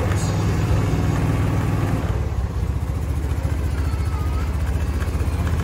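A vehicle engine running with a steady low hum, which turns into a rougher, less even rumble about two seconds in.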